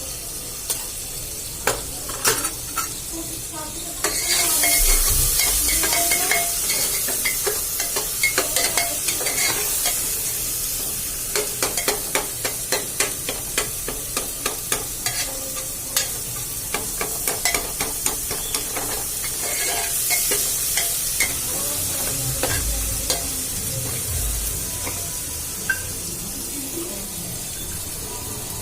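Food frying and sizzling in hot oil in a metal cooking pot while a spoon stirs, with many sharp clicks and scrapes of the spoon against the pot. The sizzle gets suddenly louder about four seconds in and swells again around twenty seconds.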